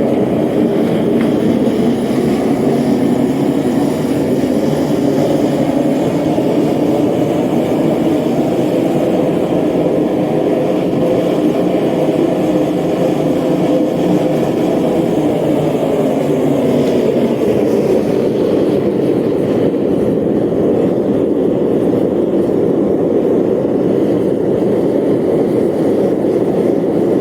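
Forge running with a loud, steady roar while a screw in the tongs is heated in it until it changes colour.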